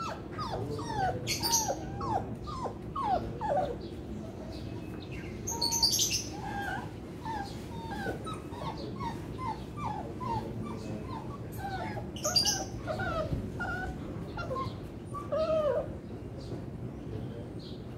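Beagles whining and whimpering, a long string of short, high, wavering whines with a few louder, sharper cries among them.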